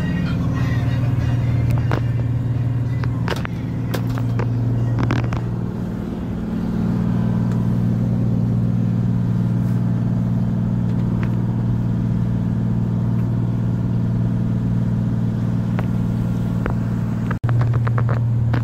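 A boat's engine running steadily underway, a loud, even low drone heard inside the wheelhouse, with a few scattered knocks and clicks from the cabin.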